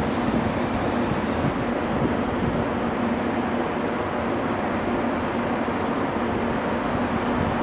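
Steady background rumble with a constant low hum, with no train passing close by.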